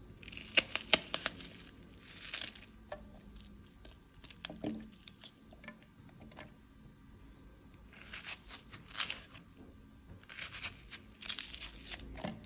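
Red onion being sliced with a kitchen knife, the blade crunching through the layers in several short spells of crisp crackling, with wedges dropping into a steel mixer jar.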